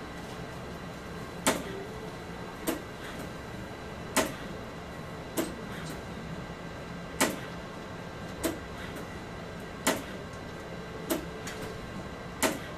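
ARTAS robotic FUE system harvesting follicular units: a sharp click about every second and a half, nine in all, over a steady machine hum.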